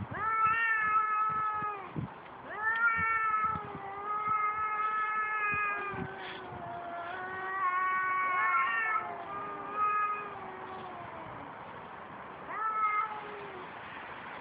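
Two cats howling at each other in an aggressive standoff: long, drawn-out wavering yowls, sometimes overlapping, in several spells with short pauses between, and a briefer yowl near the end.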